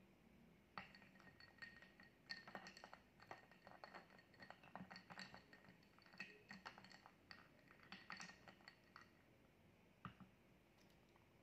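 Wooden spoon stirring in a glass of strawberry milk, clinking against the glass again and again with a faint ring. The clinking starts about a second in and stops near the end.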